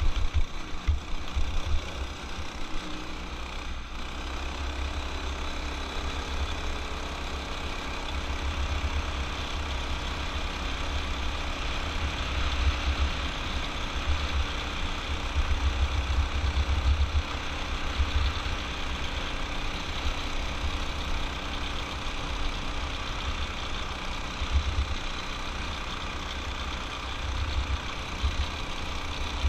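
Off-road go-kart's small engine running under way through a belt-type torque converter, with a gusty low rumble of wind on the mounted microphone.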